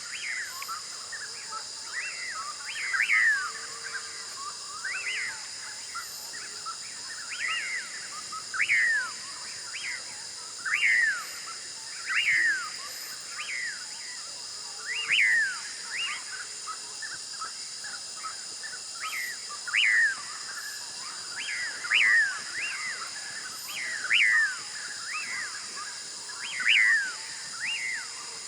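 A bird calling over and over, each call a short downward-sweeping chirp, about one every one to two seconds. A steady high-pitched hiss runs underneath.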